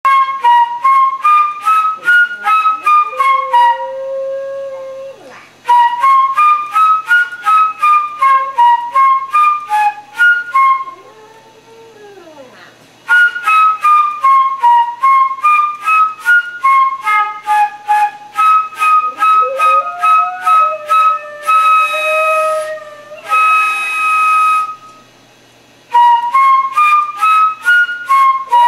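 Concert flute played in quick runs of short notes, with a couple of long held notes, while a small chihuahua–rat terrier mix dog howls along a few times in long, wavering howls pitched below the flute.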